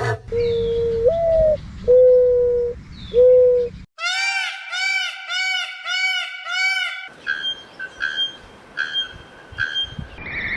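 Three different birds' calls in quick succession. First are four low hooting notes, the second one rising in pitch. Next comes a rapid run of about seven arched, rising-and-falling notes. Last are high chirps about once a second over a light hiss.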